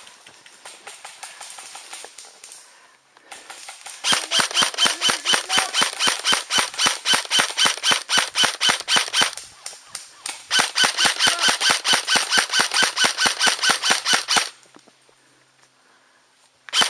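Airsoft rifle firing on full auto, close by: two long bursts of rapid sharp cracks at about ten shots a second, the first about four seconds in and the second about ten seconds in, with fainter rapid fire from farther off at the start.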